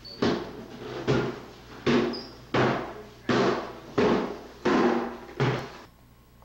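Heavy footsteps climbing a flight of stairs: eight evenly spaced thudding steps, a little under one and a half a second, each ringing briefly in the stairwell, stopping near the end.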